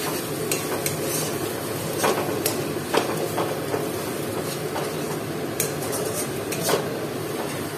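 A spatula scraping and knocking against a metal kadai as fried onion-and-spice masala is stirred, in irregular strokes over a steady frying hiss.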